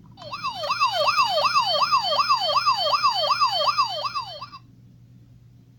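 Electronic siren sound in a fast yelp, its pitch sweeping up and down about four times a second. It starts abruptly and stops abruptly after about four seconds.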